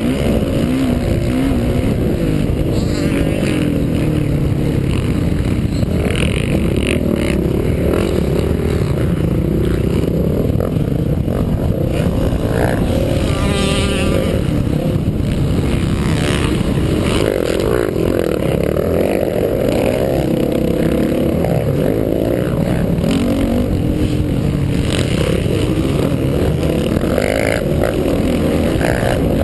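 Dirt bike engine racing on a motocross track, revving up and down as the rider accelerates and shifts, heard up close from a camera on the bike.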